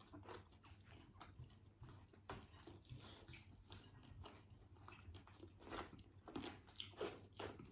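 Quiet chewing and wet mouth smacks of someone eating fried fish with their hands: a run of small irregular clicks, a little louder near the end.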